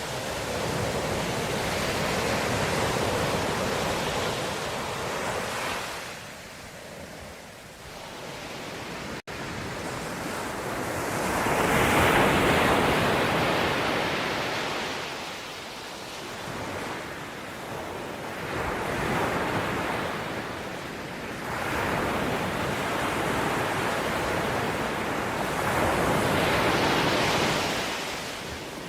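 Ocean surf: waves breaking and washing in, the rush swelling and fading every few seconds, with the biggest surges about twelve seconds in and near the end.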